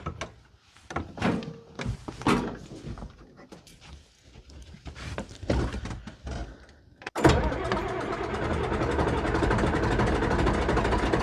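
A few knocks and clicks, then about seven seconds in the John Deere 4030 tractor's six-cylinder diesel engine starts abruptly and runs steadily.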